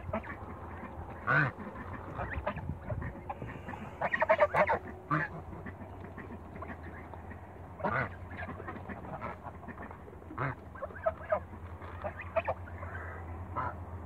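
Young African geese feeding on the ground: their bills peck and nibble in many short, irregular clicks, mixed with short calls, the loudest a quick run of them about four seconds in.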